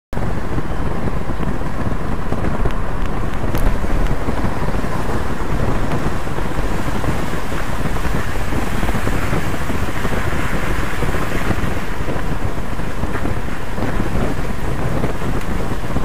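Loud, steady wind noise buffeting the microphone, a dense low rumble with no let-up, as from a camera carried at speed in the open air.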